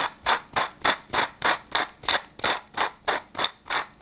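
Hand-twisted pepper mill grinding black peppercorns, a steady run of short, even crunching strokes, about three or four a second.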